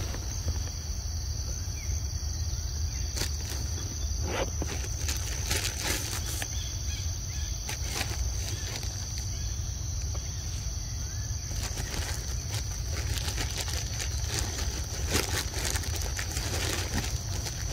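Outdoor ambience dominated by a steady, high-pitched insect drone, with a low rumble underneath and scattered short clicks and rustles.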